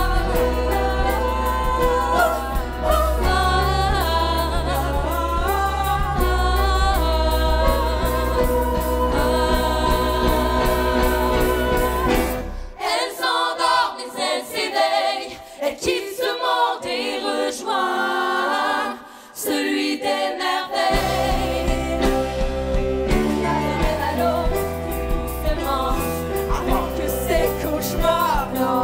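Band music with singing. About halfway through, the bass and drums drop out for roughly eight seconds, leaving the voices with light backing, then the full band comes back in.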